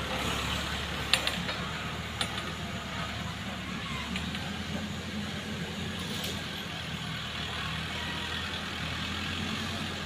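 Mahindra Arjun 605 tractor's diesel engine running under load as it pulls a fully loaded soil trailer away, easing a little quieter over the first few seconds and then holding steady. Two sharp knocks are heard about a second and two seconds in.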